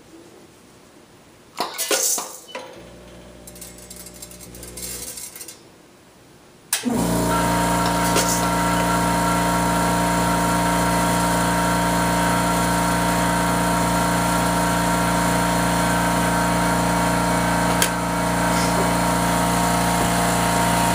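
Logical Machines S-4 automatic weigh filler: a few light metallic clinks, then about seven seconds in a loud, steady machine hum starts suddenly and keeps running.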